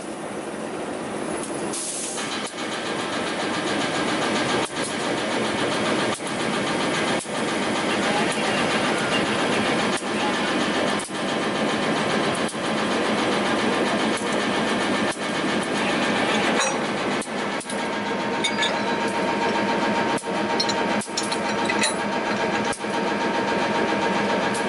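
Diesel-electric locomotive (a CC203) running at close range beside the coupling: a steady, loud mechanical noise with a regular beat, dipping briefly a little more than once a second.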